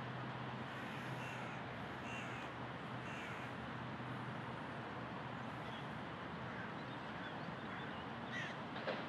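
A bird calling three times, about a second apart, over a steady background hiss, with a few fainter bird calls near the end.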